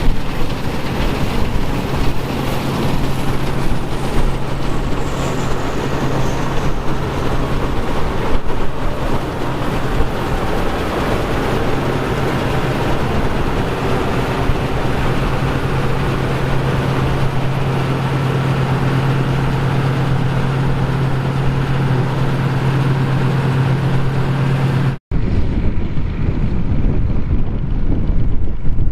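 John Deere 2140 tractor's diesel engine running steadily under load, working a John Deere 456 hay baler, with a strong steady hum and some wind on the microphone. It breaks off abruptly near the end and resumes duller.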